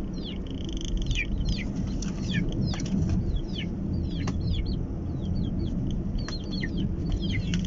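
Birds chirping over and over, each call a short falling chirp, above the steady low rumble of the car on the road.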